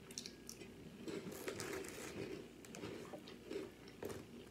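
A person chewing a mouthful of tuna salad close to the microphone: quiet, irregular mouth sounds with many small clicks.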